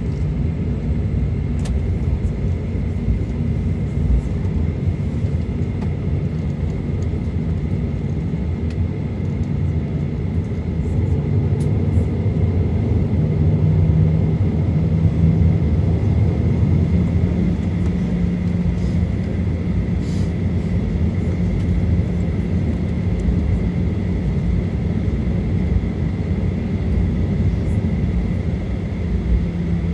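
Cabin noise of a Boeing 737-900 taxiing after landing: a steady low rumble with a constant high whine, its CFM56-7B engines at idle thrust. A lower drone strengthens about halfway through.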